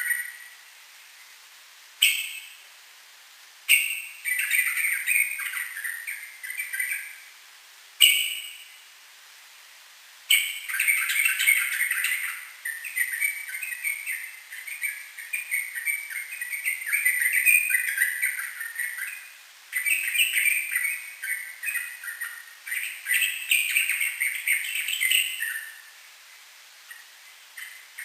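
Yellow-vented bulbul (trucukan) singing in rapid, chattering phrases. Short bursts come in the first eight seconds, then a long unbroken run of song lasts about fifteen seconds before it pauses near the end.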